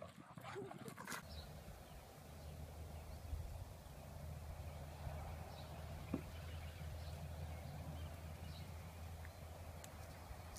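Faint outdoor background: a steady low rumble, with a few faint, brief high chirps and a single short knock about six seconds in. A short burst of scuffling noise comes in the first second.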